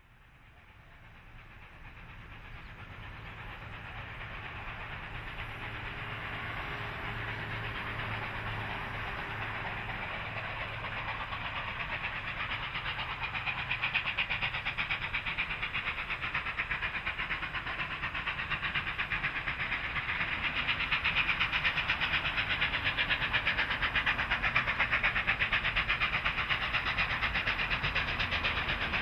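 NSWGR 38 class Pacific steam locomotives 3801 and 3830 working hard as they approach, with rapid steam exhaust beats and rail noise. The sound fades up from silence and grows steadily louder as the train draws nearer.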